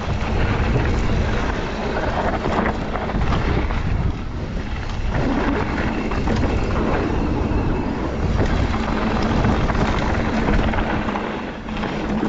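Wind buffeting the action-camera microphone while riding a mountain bike downhill, with tyres rumbling over the dirt trail and the bike rattling over bumps.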